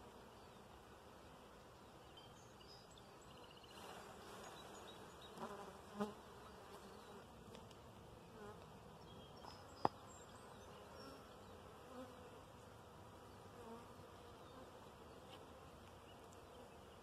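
Honeybees buzzing faintly around an opened nucleus colony, with a single sharp click about ten seconds in.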